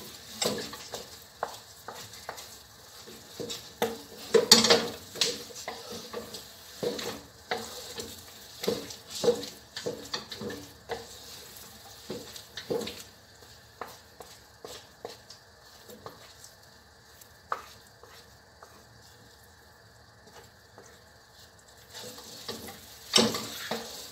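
Two wooden spatulas scraping and knocking in a wok as a thick mass of biko (sticky rice cooked in coconut milk and sugar) is turned over and stirred on the stove. The knocks come in irregular runs, thinning out about two-thirds of the way in and picking up again near the end. The mixture is still being worked because it is not yet sticky.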